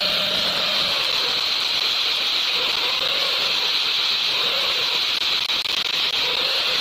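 Angle grinder with an abrasive disc running steadily against a stainless steel pipe, sanding and finishing the metal: a continuous high hiss with a slightly wavering motor pitch.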